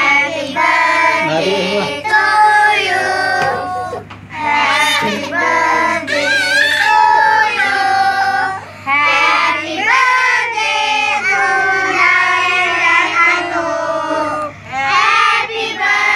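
A group of children singing a birthday song together, with some women's voices among them, in phrases with short pauses for breath.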